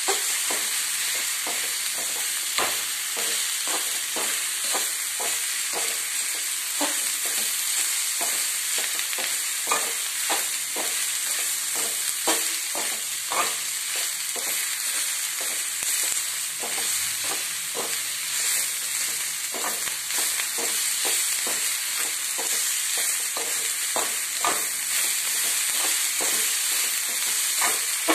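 Prawns, onions and vegetables sizzling steadily in hot oil in an iron kadai, while a metal spatula stirs them, scraping and knocking against the pan in irregular strokes.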